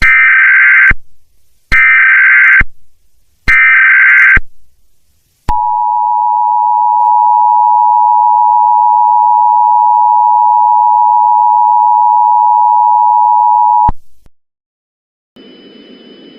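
Emergency Alert System header: three short bursts of digital SAME data screech, each just under a second long, followed by the EAS two-tone attention signal, a steady dual tone held for about eight seconds that cuts off suddenly. A faint hum comes in near the end.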